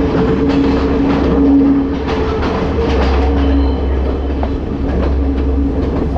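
Passenger train running, heard from its open carriage doorway as it comes out of a tunnel: wheels clattering over the rails over a steady low rumble, with a droning tone that fades out about four seconds in.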